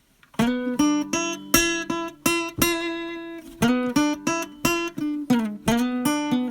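Music: plucked acoustic guitar playing a run of picked notes and chords, starting just under half a second in.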